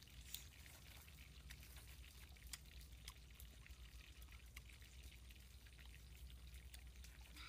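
Near silence: faint background with a low hum and scattered small clicks.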